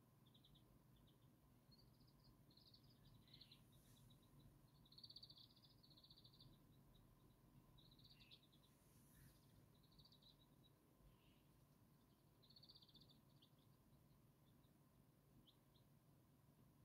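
Silver Laced Wyandotte chicks peeping faintly in short trilling bursts as they settle under the brooding hen, with a lull a little past the middle and a couple of single chirps near the end.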